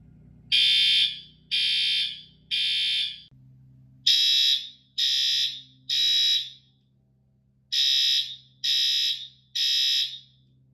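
Building fire alarm horns sounding the temporal-3 evacuation pattern after a manual pull station is activated: three loud, high-pitched beeps, a pause, then the group repeated, three groups in all.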